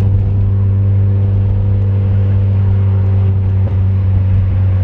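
Mazda MX-5's four-cylinder engine running at a steady cruise, a constant drone with a brief dip about three and a half seconds in.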